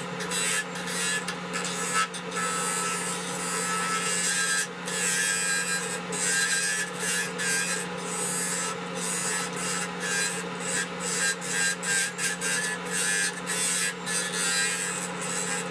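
Wood lathe running with a steady hum while a hand-held turning tool cuts the spinning wooden turkey-call blank. The cutting gives a scraping hiss that stops and starts many times as the tool works the wood.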